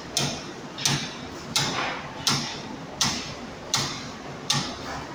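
Palm oil processing machinery knocking in a steady rhythm, one sharp knock about every 0.7 seconds, each fading quickly, over a continuous mechanical hiss.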